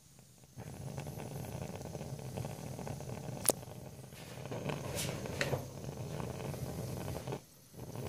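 Breath blowing on a gas heater's pilot flame: a steady low rushing rumble that starts abruptly about half a second in and breaks off briefly near the end, with a few sharp metallic clicks from the heater cabinet. Blowing gently is the workaround that keeps the lifting pilot flame on its sensor so the heater does not cut out.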